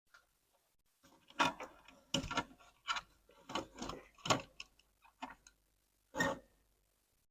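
A series of about eight irregular clicks and light knocks, typical of small tools being handled and set down on a workbench.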